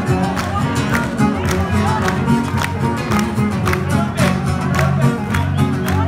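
Live band playing upbeat folk music: plucked string instruments over a steady, driving percussion beat.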